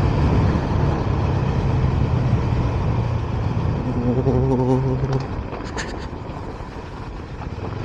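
Motorcycle engine running while riding, with a steady low hum over road and wind noise; the engine note drops off about five seconds in.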